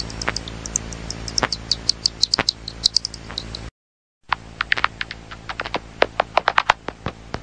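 Bats squeaking: rapid, short, high-pitched chirps, several a second, over a steady hiss. The recording cuts off about halfway, and after a brief silence a second bat recording starts, with the chirps coming faster and denser.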